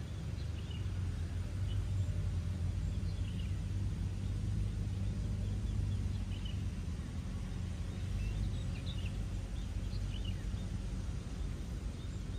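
Steady low rumble of outdoor ambience, with short high bird chirps scattered through it every second or so.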